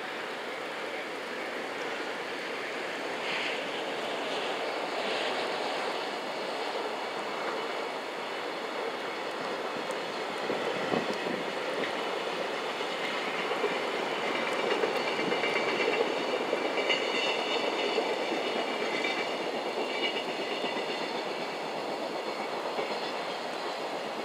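Container freight train hauled by an EF510 electric locomotive passing: a steady rumble of steel wheels on rail with faint clicks over the rail joints, growing louder as the wagons go by. A faint high whine joins in about halfway through.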